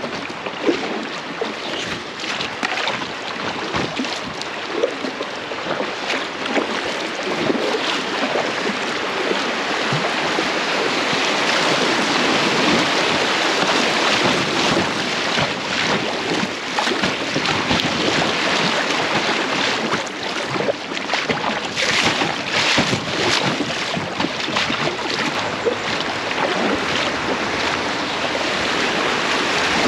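Fast-flowing river water rushing and splashing around an inflatable packraft, a steady rushing noise that grows louder about ten seconds in.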